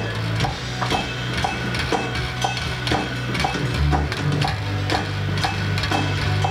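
Electric bass guitar playing held low notes, shifting to a lower note about four seconds in, over a steady tick about twice a second.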